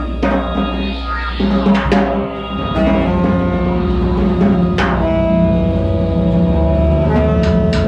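Live trio music: a drum kit with scattered drum and cymbal strikes under held alto saxophone and bowed cello notes, growing fuller and louder about three seconds in.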